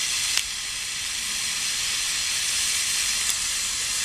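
Oxygen-fuel torch flame hissing steadily as it heats steel rebar in a vise toward red heat for bending. A sharp click about half a second in, and a fainter one near the end.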